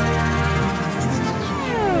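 Background music: sustained electronic chords, with a falling pitch sweep in the second half.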